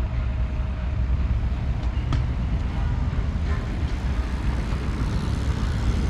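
Street ambience: a steady low rumble of road traffic.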